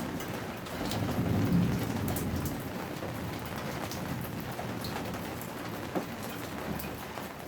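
Rain falling steadily, with scattered sharper drops striking close by. A low rumble swells and fades over the first two seconds.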